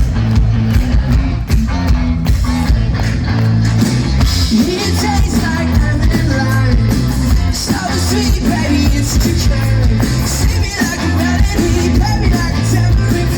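Live rock band playing loudly through a festival PA: a steady drumbeat and bass under guitar.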